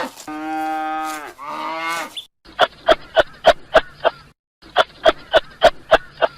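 Cow mooing: one long, steady low call that falls away at the end, then a shorter one. After that come two runs of short, rapid pulsed calls, about four a second, from an animal that can't be named.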